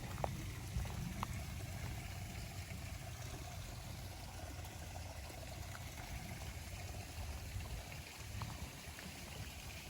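Storm runoff water flowing and trickling through a creek draw, with a low rumble underneath and a few faint clicks.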